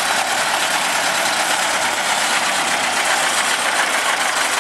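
Diesel engine of a vintage IFA Pionier tractor running steadily.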